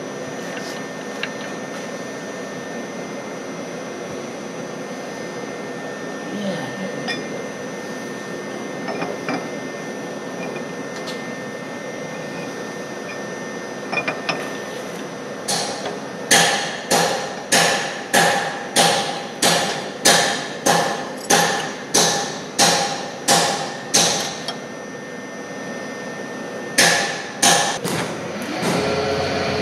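A run of sharp metal-on-metal taps, about two a second for some eight seconds, each ringing briefly, with two more a few seconds later. A milling machine's spindle starts running near the end, under a steady shop hum.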